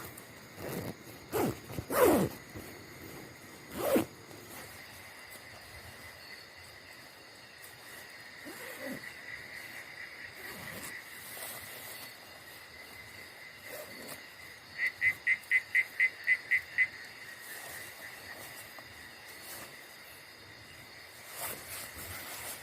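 Night forest ambience with a steady high insect trill. A few sharp snaps with falling tails come in the first few seconds, and about two-thirds of the way in an animal gives a quick run of about nine high chirps, about four a second.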